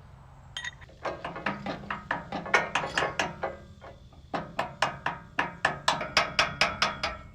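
A ratchet clicking in two runs of quick, even clicks, about four a second, with a short pause between them.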